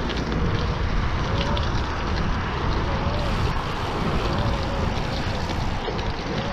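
Steady wind noise on the microphone over the tyres of a Cube Nuroad gravel bike rolling on a dirt path, with faint clicks and rattles from the bike.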